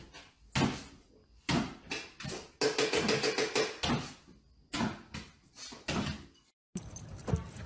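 About a dozen sharp, irregular knocks and taps, with a brief thin tone about three seconds in; they stop shortly before the end.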